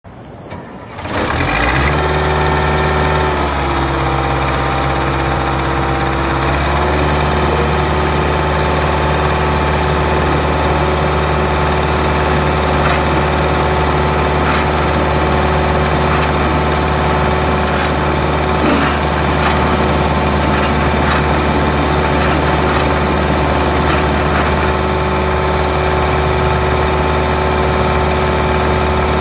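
2006 LeeBoy 8515 asphalt paver's engine starting about a second in, then running steadily at idle. Its speed shifts briefly a few seconds after starting, then holds steady.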